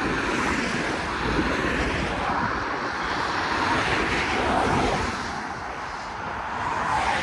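Road traffic passing close by: a steady rush of tyres and engines that swells about four seconds in and again near the end as vehicles go by.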